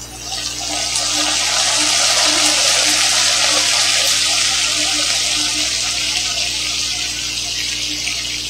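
Meat broth spooned into a pan of caramelized onions in very hot oil, setting off a loud sizzle that starts suddenly and slowly eases.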